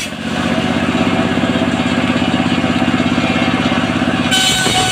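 Engine of a portable circular sawmill running with a fast, even pulsing beat. Near the end a steady higher-pitched ringing comes in over it.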